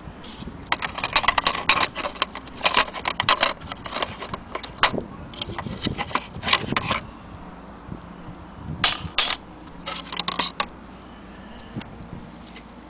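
Irregular clicking and clattering of a small wooden mantel clock case and its brass movement being handled and turned over, in two bursts, the second starting about 9 seconds in.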